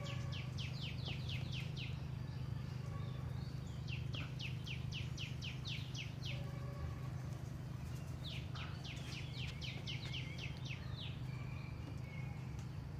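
A bird singing three runs of quick falling whistled notes, about six notes a second, each run lasting two seconds or so with pauses between, over a steady low rumble.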